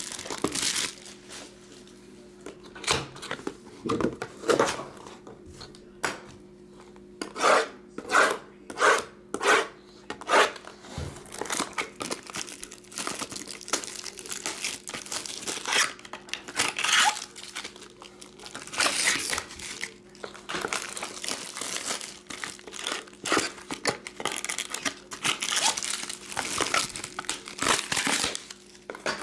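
Plastic and foil trading-card wrapping crinkling and tearing as a card box is unwrapped and opened, with a quick run of about seven sharp rustles about a third of the way in.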